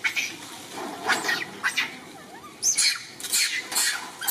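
Baby macaque giving short, high-pitched distress cries: a few spaced calls, then a quick run of them, about three a second, in the last second and a half.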